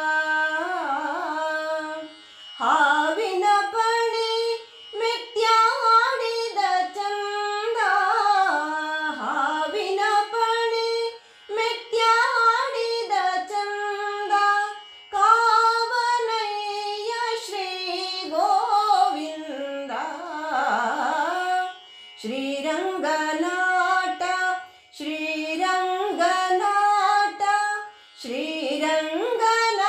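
A woman singing a Kannada devotional song (devaranama) in Carnatic style: one gliding melodic line in phrases of a few seconds, with short breaks between them.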